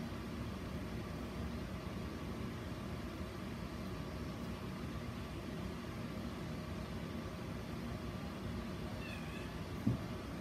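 A domestic cat meows once, short and faint, near the end, over a steady low room hum. A short thump follows just before the end.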